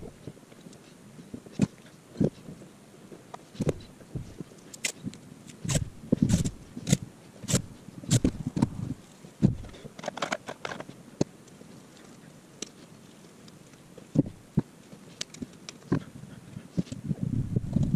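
Irregular handling clicks, knocks and scrapes of hands working a rubber-and-metal engine mount, winding loom tape around it and fitting a Jubilee hose clip over the tape.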